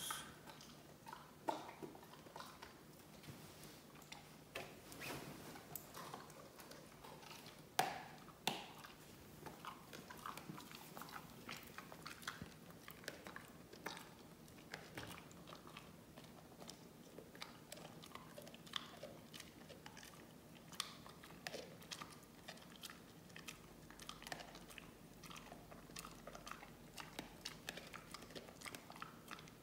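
A dog gnawing and crunching a chew stick treat: faint, irregular crunches and clicks, with a couple of louder cracks about eight seconds in.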